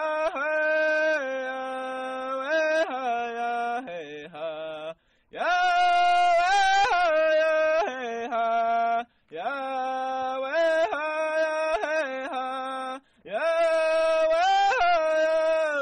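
A single voice singing a slow, chant-like melody in long held notes that slide between pitches, in four phrases with short breaks between them.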